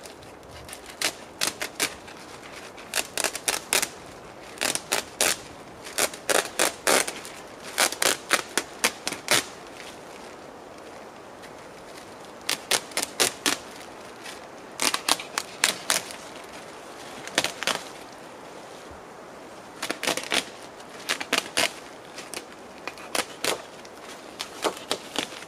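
Hammer tapping nails into the log wall to fasten a tarp: runs of quick, sharp taps, several to a run, with short pauses between the runs.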